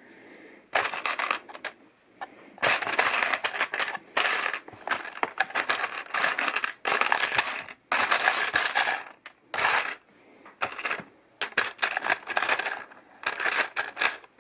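Plastic LEGO pieces clattering and clicking as they are handled, in a string of short bursts.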